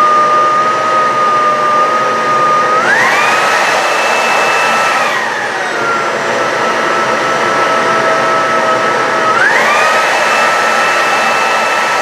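Cecotec Conga Rockstar 10000 Nebula cordless vacuum running, its motor whine stepping up sharply in pitch twice, about three seconds in and again near the end, as it kicks into its super-turbo boost. The first boost lasts only about two seconds before the whine drops back: the turbo runs for just two or three seconds, not the fifteen the manual claims.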